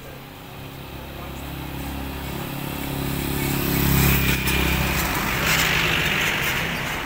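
Road traffic passing close by: a pickup truck's engine grows louder and goes past about four seconds in, followed by a car passing with tyre noise on the concrete road.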